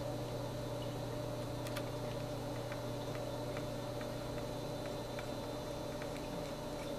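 Steady low electrical hum, with a few faint, scattered small clicks.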